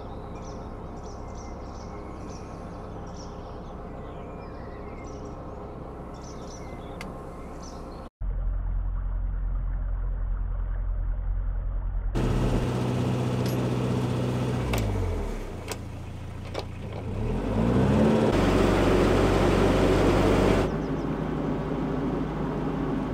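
Narrowboat engine running steadily, with faint birdsong over it. After a cut about eight seconds in the engine is louder and duller; later its note drops and then rises again as the throttle is eased and opened, with a rushing noise for a couple of seconds near the end.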